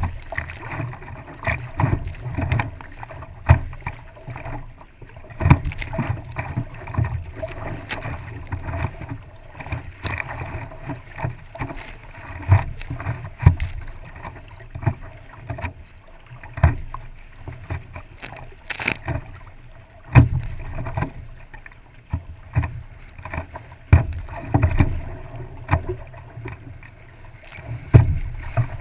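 Stand-up paddleboard moving through choppy water, picked up close to the board's nose: constant sloshing and splashing, with irregular low thumps as chop slaps the board and the paddle goes in.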